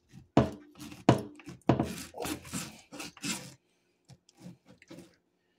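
A knife cutting raw pork ribs apart between the bones on a wooden cutting board: sharp knocks of the blade striking the board, about three of them less than a second apart, then a run of softer thuds and handling of the wet meat.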